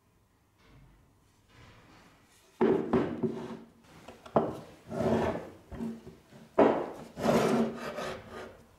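Splitting axe with a laminated plywood handle being set down and shifted about on a wooden workbench: several knocks of wood and steel on the bench top, each followed by a short scraping rub of wood on wood.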